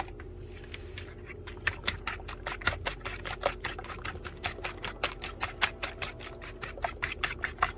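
Eggs being beaten in a bowl with a fork: quick, even clicking taps of the utensil against the bowl, about five or six a second, after a brief pause near the start.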